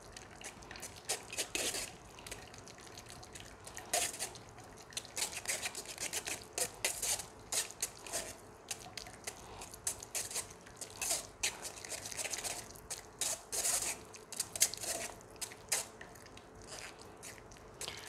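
Metal spoon scraping and pressing a wet, curdled mixture of condensed milk and yogurt in a fine metal mesh strainer, in short irregular strokes, as the liquid drains and drips into the bowl below.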